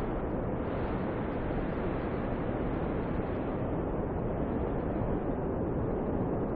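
Snowstorm wind blowing as a steady, even, low-pitched rush of noise, without distinct gusts or breaks.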